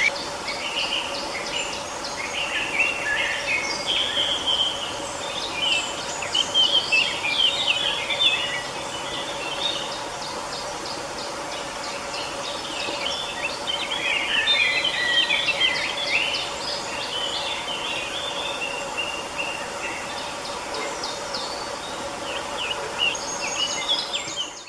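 Several songbirds singing and chirping in quick overlapping phrases, in clusters that come and go, over a steady low background drone.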